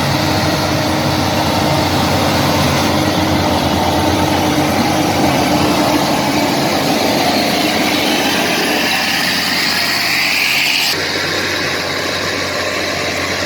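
Heavy diesel engines of a bulldozer and a logging lorry running steadily, as the bulldozer takes the lorry in tow. A high whine rises in pitch over the middle of the stretch, then the sound changes abruptly about eleven seconds in.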